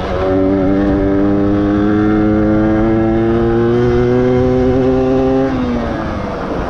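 1994 Yamaha DT125R's stock two-stroke single-cylinder engine pulling steadily under throttle, its note climbing slowly for about five seconds. Near the end the note drops and fades into wind and road noise.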